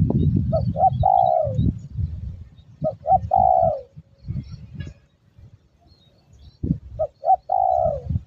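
Spotted dove (tekukur) cooing three times, each call two short coos followed by a longer coo that falls in pitch. A low rumbling noise lies under the first call.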